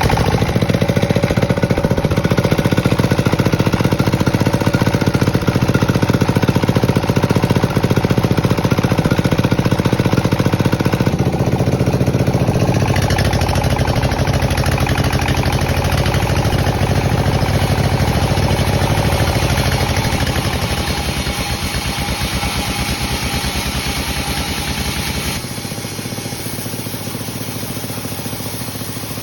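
Sawmill machinery with its engine running steadily and loudly. The sound changes about halfway through and becomes quieter and thinner near the end.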